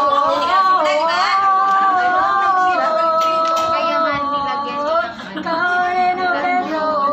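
A woman singing high, long-held notes that glide from one pitch to the next, with a short break about five seconds in before she carries on lower.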